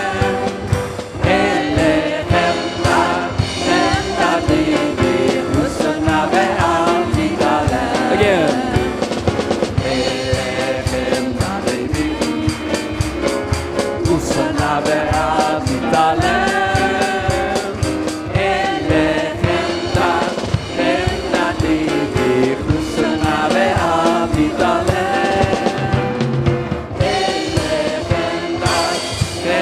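Congregation and worship band singing a Hebrew worship song, voices over drums and instruments with a steady beat.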